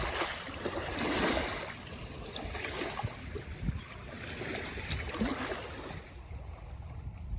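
Small lake waves lapping and splashing at the shore in irregular surges, over a low wind rumble.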